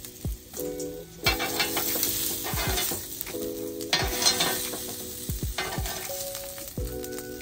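Octopus pieces sizzling on a hot grill, the sizzle surging loudly about a second in and again near the middle.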